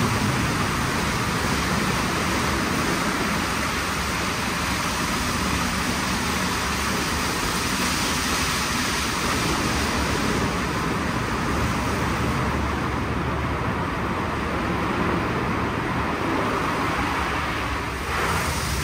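WashTec SoftCare² Takt gantry car wash running through its cycle: a loud, steady rushing of machinery and water. The hiss in the highest range thins out about halfway through.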